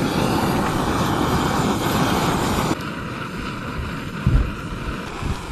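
Canister camp stove burner roaring steadily under a boiling pot of crawfish. The roar drops abruptly to a quieter rush about two and a half seconds in, and there is a single knock about four seconds in.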